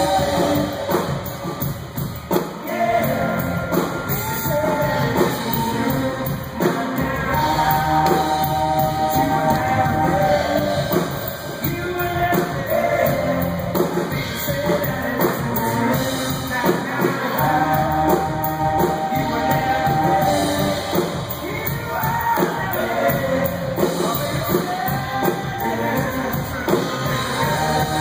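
Live band music with singing: electric guitars and long held vocal notes, heard through the concert PA from the audience.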